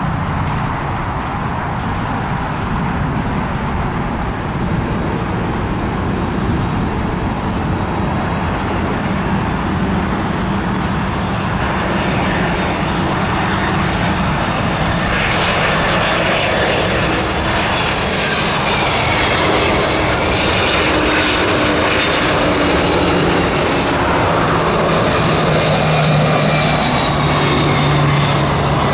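Jet airliner engines running, a steady roar that grows gradually louder, with high whining tones that waver in pitch from about halfway through.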